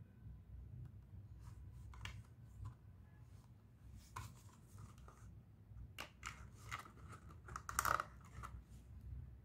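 Clear plastic blister packaging crackling and clicking as it is handled and pried open, with the loudest burst of crackles near the end.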